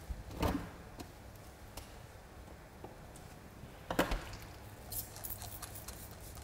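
Scattered light clicks and knocks of barbershop tools and products being handled, with a louder knock about half a second in, another about four seconds in, and a run of quick faint ticks about five seconds in.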